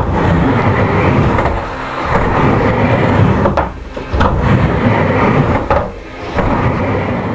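Wheels rolling back and forth on a wooden half-pipe ramp, a loud steady rumble with sharp knocks and bangs as riders hit the deck and coping.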